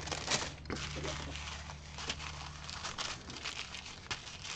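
Plastic bags crinkling and rustling in irregular crackles as a large clear bag full of small zip-lock bags of diamond-painting drills is handled and pressed down.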